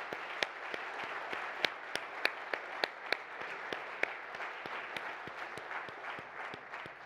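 Audience applauding, many hands clapping steadily, beginning to die away near the end.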